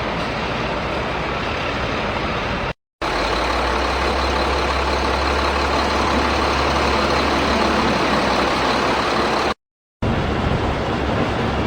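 Steady engine-like vehicle noise with a low hum. It cuts out to silence twice for a moment, about three seconds in and near the end.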